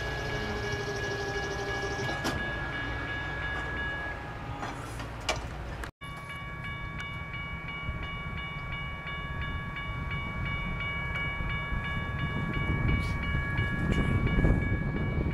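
Railroad grade crossing with a steady high ringing warning tone over a low train rumble. The rumble grows louder over the last few seconds as the train nears. The sound drops out briefly about six seconds in, and the ringing changes pitch after the break.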